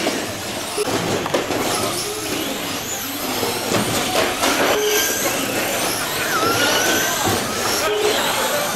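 Electric 1/10-scale short-course RC trucks racing on an indoor carpet track: the motors whine up and down in pitch as the trucks accelerate and brake, over a haze of tyre and drivetrain noise with the odd knock. A few short beeps sound on one tone in the second half.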